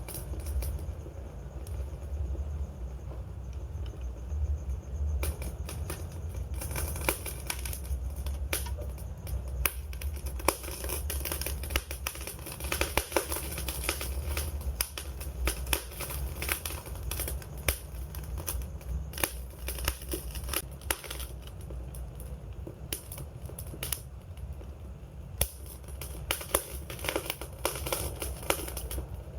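Wood fire burning with a low rumble of flame and many sharp irregular crackles and pops, thickest through the middle stretch.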